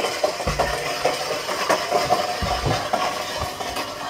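Weighted sled dragged along tarmac: a continuous gritty scraping with small clicks, broken by a few dull thumps.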